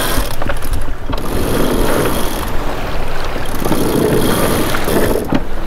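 Water rushing and splashing along the hull of a sailboat under sail, with wind buffeting the microphone. The rush swells and fades with the waves.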